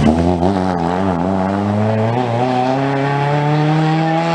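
Peugeot 205 rally car's engine under hard driving through a corner: the revs waver up and down for about two seconds, then climb steadily as the car accelerates away.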